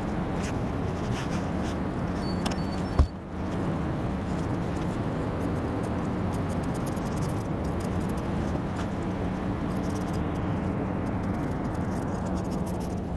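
Large scissors snipping through the thin backing of seat foam, heard as faint repeated snips from about seven seconds in, over a steady hum and hiss. There is a single sharp click about three seconds in.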